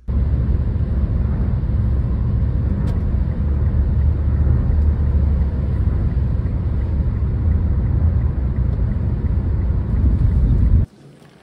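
Loud, steady rumble of a moving vehicle heard from inside the cabin, road and engine noise, heaviest in the low end. It cuts off suddenly near the end.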